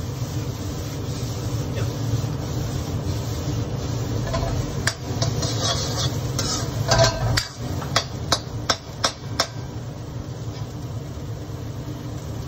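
Metal wok ladle stirring and scraping fried rice around a steel wok, then about six quick sharp clinks of the ladle against the wok about eight seconds in, over a steady low hum.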